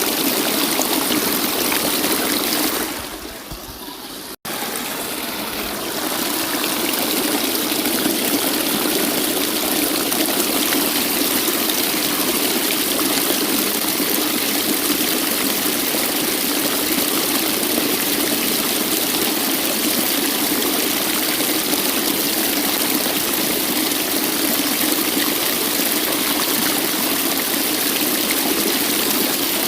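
Waterfall rushing steadily in a dense, even hiss. About three seconds in it fades down, cuts out for an instant, then swells back to full.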